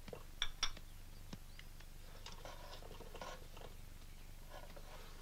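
Two sharp knocks close together about half a second in, then faint scattered clicks and rustling over a steady low hiss.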